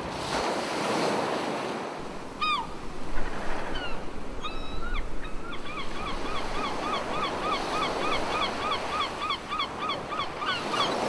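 Ocean surf washing steadily, with short, high, pitched calls: a few at first, then a regular run of about three or four chirps a second from about five seconds in.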